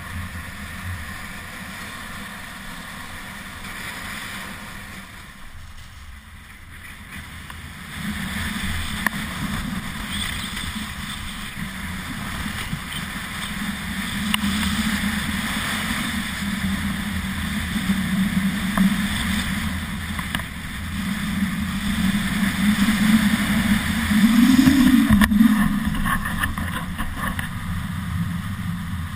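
Skis hissing and scraping over groomed snow on a downhill run, mixed with wind buffeting the camera microphone; the noise steps up in loudness about eight seconds in and is loudest a few seconds before the end.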